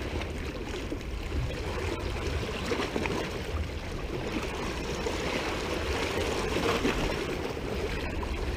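Small sea waves washing and sloshing over the rocks of a breakwater at the water's edge, a steady splashing wash.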